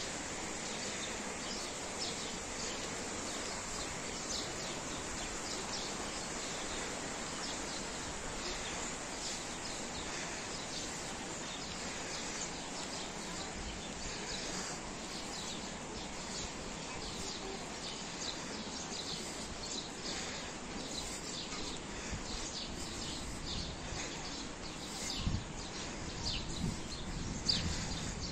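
Park ambience: a steady background hush with birds chirping throughout, and a few louder thumps near the end.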